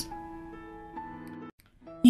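Soft background music of steady held notes, moving to new notes about halfway through, then cutting out briefly near the end.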